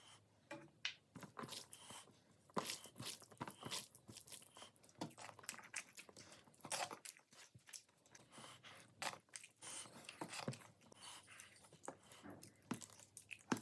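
Close-miked eating: someone biting and chewing crunchy food, with a steady run of irregular sharp crunches.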